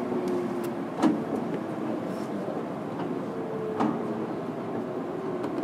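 Running sound inside a JR 103-1500 series electric motor car, with the MT55 traction motors' whine falling slowly in pitch as the train slows. Two sharp knocks come through, a loud one about a second in and a smaller one near the four-second mark.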